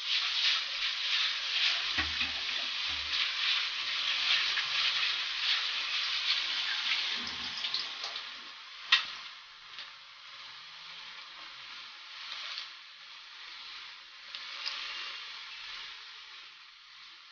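Pork pieces frying in sauce in a wok, a steady sizzling crackle that drops to a quieter sizzle after about eight seconds. A single sharp clack about nine seconds in.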